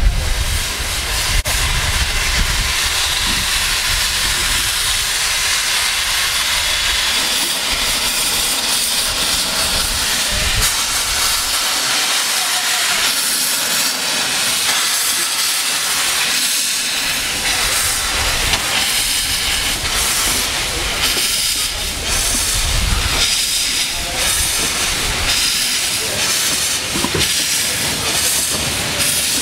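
Steam locomotive Sir Haydn, a narrow-gauge 0-4-2 saddle tank, hissing steadily and loudly as it starts its train away, steam blowing from the open cylinder drain cocks. Exhaust chuffs come through in the latter part as it gets under way.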